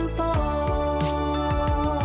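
Background music with a steady beat under held melodic notes.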